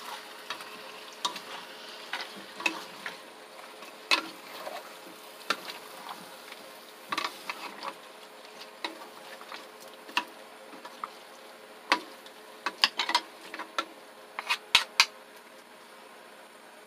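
Two wooden utensils stirring and tossing chili-marinated chicken pieces in a frying pan: irregular clicks and knocks of wood on the pan over a soft sizzle. The knocks come thickest toward the end and stop about two seconds before it.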